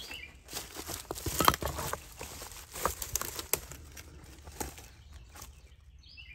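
Footsteps crunching over dry leaves, twigs and loose stones: a run of crackles and knocks that dies down after about five seconds.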